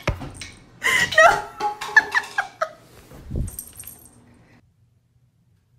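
A run of short, high-pitched, squeaky vocal cries over about two seconds, then a single dull thump.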